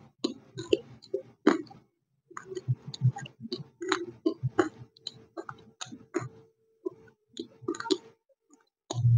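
Close-miked chewing of hard, dry white lumps (white nakumatt): many sharp crunches come several times a second, with short pauses about two seconds in and near the end.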